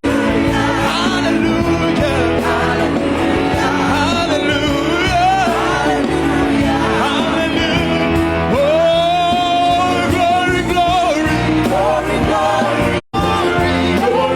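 Choir singing a gospel song with a full band, a lead voice holding long notes with vibrato over the group. The sound cuts out briefly twice, right at the start and about 13 seconds in.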